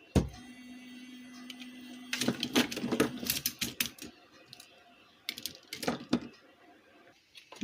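Quick runs of small clicks and taps as parts of a car stereo's front panel are handled, following a low steady hum of about two seconds at the start.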